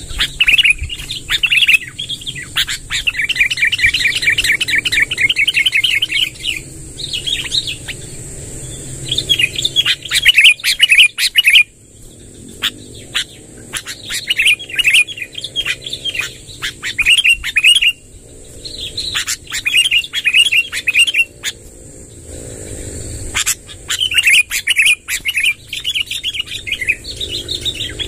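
Sooty-headed bulbul (kutilang) singing long rolling trilled phrases, one after another with short breaks, over a steady high hiss.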